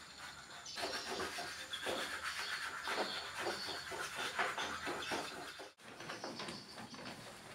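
Rustling, crinkling and rubbing of a large sheet of self-adhesive contact paper as it is handled and smoothed down onto a cabinet, in a quick irregular run of strokes that breaks off for a moment about three quarters of the way through.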